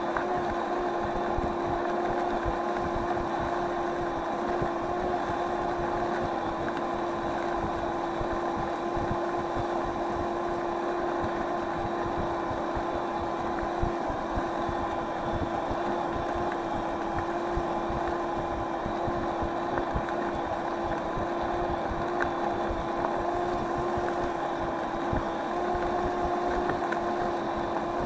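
Electric scooter riding at a steady cruising speed: the motor gives a constant whine over the rumble of the tyres and road.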